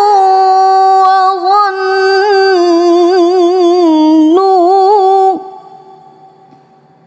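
A woman's voice in tilawah, melodic Quran recitation, holding one long ornamented phrase with rapid wavering trills. It sinks lower about four seconds in, jumps back up and breaks off about five seconds in, leaving a short fading echo.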